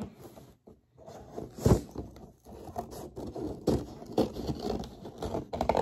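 Hands working at a cardboard toy box: irregular scraping and rubbing of cardboard, with a sharper knock about one and a half seconds in.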